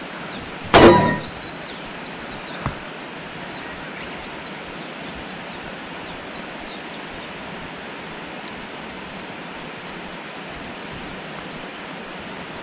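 A single loud whoosh sweeping down in pitch about a second in, a faint tap near three seconds, then a steady outdoor hiss with faint high chirps.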